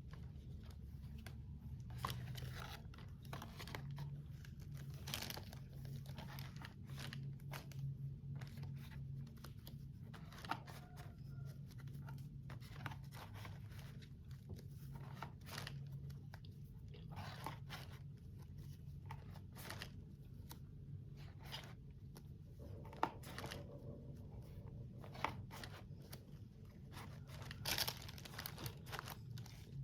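Plastic packaging and a plastic box being handled: irregular crinkling, tearing rustles and small clicks and knocks, over a steady low hum.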